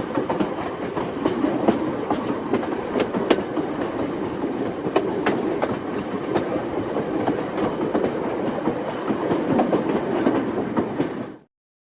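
Train running on rails: a steady rumble with irregular clicks and clacks of the wheels over the track, cutting off suddenly near the end.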